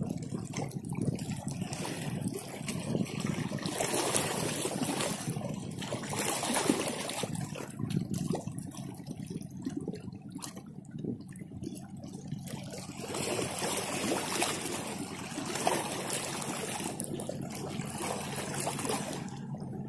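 Shallow seawater washing and trickling among coral rocks at the shoreline, rising and easing in irregular surges every few seconds.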